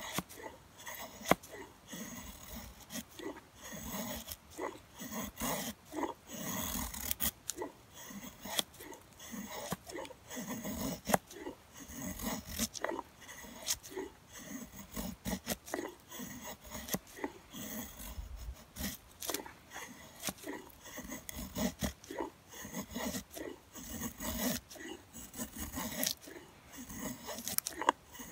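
Steel hatchet blade shaving curls off a dry stick to make a feather stick: a run of short, irregular scraping strokes through the wood, with a few sharp clicks. The hatchet is a small Marbles 700DB double-bit.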